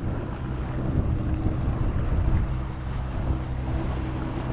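Tohatsu outboard motor running steadily at a constant pitch, with wind buffeting the microphone.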